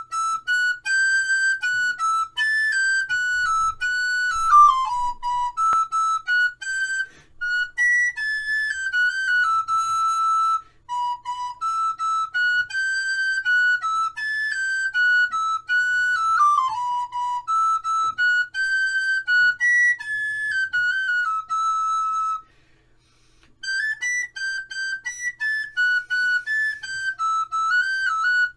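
Background music: a solo flute-like wind instrument playing a melody one note at a time, with a short pause about two-thirds of the way through.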